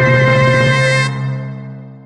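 Electronic musical sound effect: a sustained synthesizer chord with a wavering high tone stops about halfway through and rings away in a fading tail.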